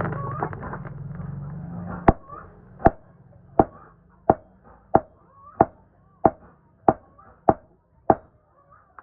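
Hammer striking iron on an anvil: about ten evenly paced blows, starting about two seconds in, each with a short metallic ring. Before the blows, a steady low hum fades out.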